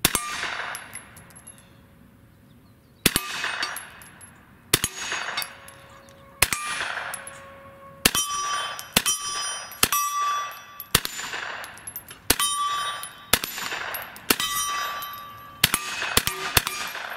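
Ruger PC Carbine, a 9mm semi-automatic carbine, firing about a dozen shots that echo. They come a second or two apart at first and quicker after about eight seconds. Steel targets ring after the hits.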